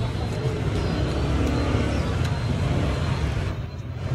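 Steady low rumble of road traffic, dipping briefly near the end.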